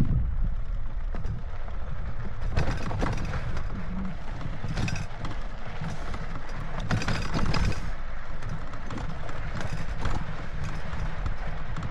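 Mountain bike rolling over a rocky dirt trail: tyres crunching on dirt and small rocks, the bike knocking and rattling over the bumps, under a steady rumble. The rattling is heaviest around three seconds in and again around seven seconds in.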